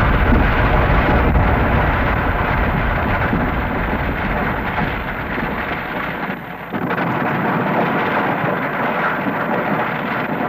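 Loud, continuous rumbling, rushing noise. After a brief dip about six and a half seconds in, the deepest rumble drops away while the rushing carries on.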